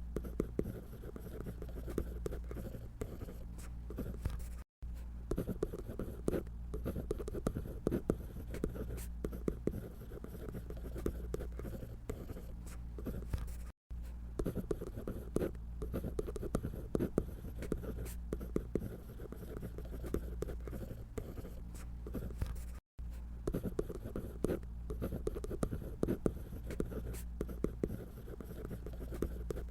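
Drawing on paper: a drawing tip scratching in quick, dense short strokes, breaking off for a split second three times.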